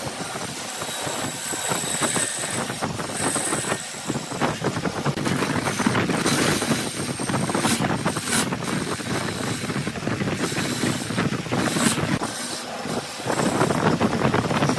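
Wood lathe running while a turning tool cuts the spinning wood: a dense, continuous scraping with quick fine clicks, easing briefly near the end and then louder again.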